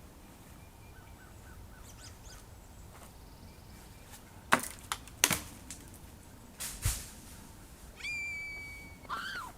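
Footsteps crunching through dry forest litter, with a few sharp snaps of twigs. Near the end comes a high steady whistling tone lasting about a second, then a shorter one that dips in pitch.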